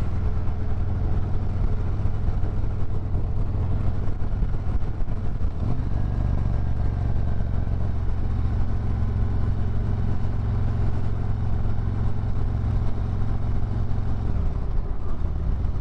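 Harley-Davidson Road Glide's V-twin engine running under way, with wind and road noise. Its pitch rises about six seconds in and drops again near the end.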